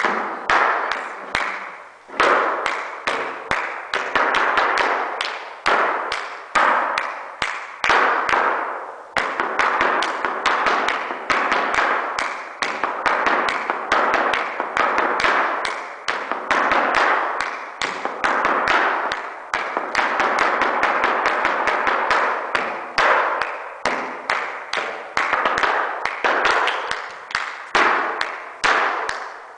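Flamenco footwork (zapateado): heels and soles of flamenco shoes stamping and tapping on a practice board in quick rhythmic runs broken by short pauses, each strike ringing briefly in the room.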